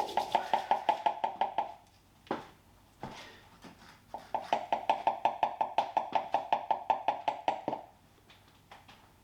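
Rapid, evenly spaced ticking, about nine ticks a second, in two runs of a few seconds with a pause between.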